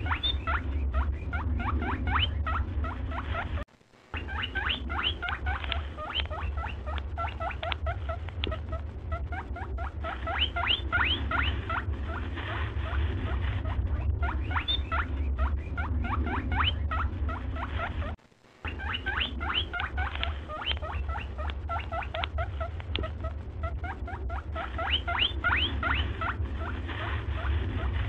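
Rapid high chirps come in repeating clusters over a steady low hum. Everything cuts out briefly twice, about a third of the way in and again about two thirds in.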